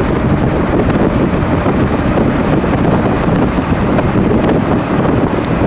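Steady road and wind rumble inside a moving car.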